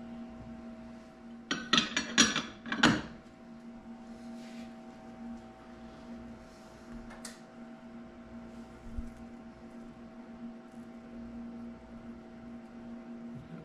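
A quick run of sharp clattering knocks about two seconds in, with a few lighter taps after, as things are handled on a workbench with aluminium bait molds, over a steady electrical hum.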